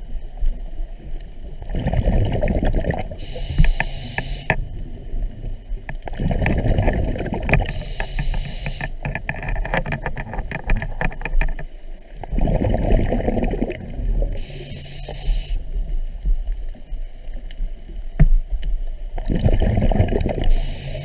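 Scuba diver breathing through a regulator underwater: a short hissing inhalation alternates with a longer rumble of exhaled bubbles, about four breaths at five- to six-second intervals. A patter of small clicks comes about halfway through.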